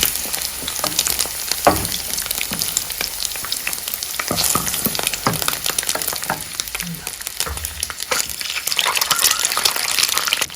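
Potatoes and onion sizzling in hot oil in a pan, stirred now and then, with short scrapes and taps of the utensil against the pan.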